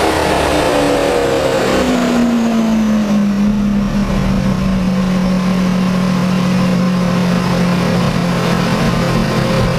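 Lamborghini Aventador LP700-4's V12 through a Fi valved exhaust, on a chassis dyno: the engine note falls over the first few seconds as the revs come down, then holds steady at lower revs.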